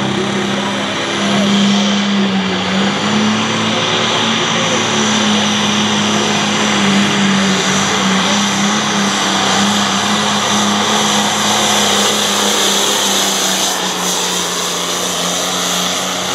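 Light Limited Pro Stock pulling tractor's 466-cubic-inch diesel engine at full throttle under load, pulling the sled down the track. A loud, steady drone that holds its pitch throughout.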